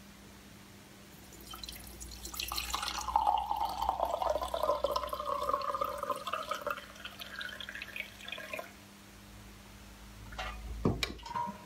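Onion-skin dye poured from a stainless steel pot through a mesh strainer into a small glass jar. The pouring runs for several seconds, its pitch rising as the jar fills, then stops. A couple of sharp knocks come near the end.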